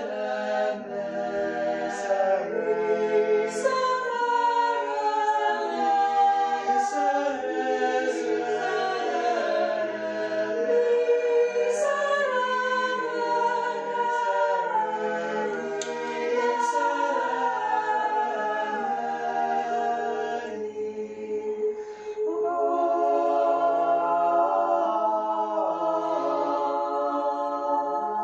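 A sextet of mixed young voices singing a Latin motet a cappella in sustained chords, the parts moving slowly together. There is a brief break between phrases about three-quarters of the way through before the full chord comes back in.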